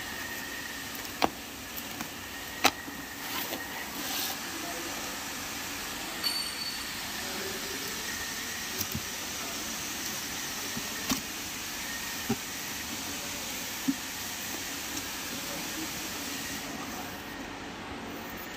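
Cardboard shipping box being handled and opened by hand: scattered sharp clicks and taps of the flaps and loose plastic strapping, with a short rustle, over steady background noise.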